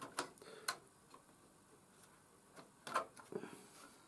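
A few light wooden clicks and taps as a thin wooden railing section is handled and its notches are pressed into the holes along a model bridge deck. The loudest click comes about three seconds in.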